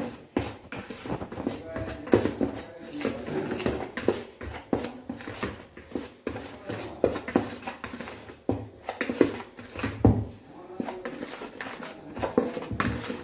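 A spoon knocking and scraping in a bowl while dry flour and spice powders are mixed, in a run of irregular clicks and taps.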